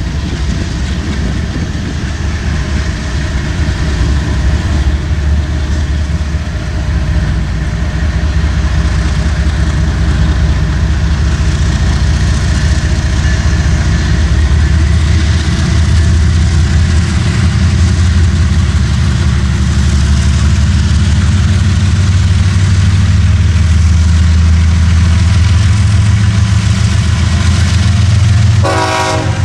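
Diesel locomotive engine running with a deep, steady throb, growing louder over the first several seconds and then holding steady.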